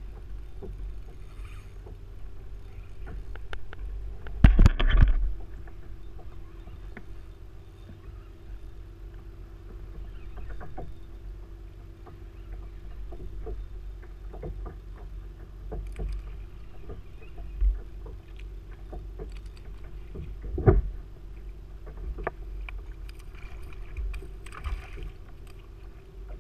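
Bumps and knocks of gear against a sit-on-top fishing kayak, with water moving around the hull, as an angler works a spinning rod and reel. The loudest knocks come about five seconds in and again near twenty-one seconds, over a faint steady hum.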